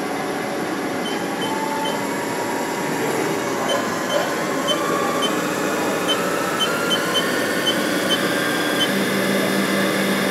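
Spindle of a 2007 Haas TM-2 CNC vertical mill running with no cutting load. It speeds up from about 1,700 to 2,400 RPM as a steady whir that grows slightly louder.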